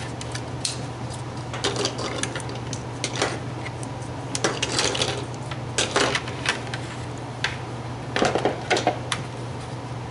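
Plastic spring clamps being squeezed open, pulled off a plastic helmet shell and set down on a wooden workbench: scattered clicks and clatters, with a cluster of them about eight seconds in.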